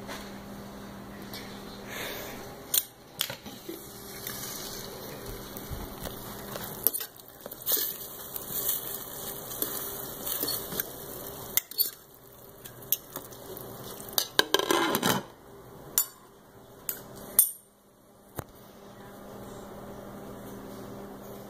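Kitchen clatter: a metal fork clinking and scraping in a pan of sausages in sauce, with a glass pan lid, giving many scattered sharp clinks and a short scrape near the middle.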